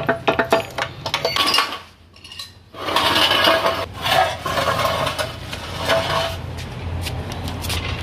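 Metal tools and steering-rack parts clinking and knocking as they are handled. There is a quick run of clinks in the first couple of seconds, a brief lull, then more clatter, over a steady low hum.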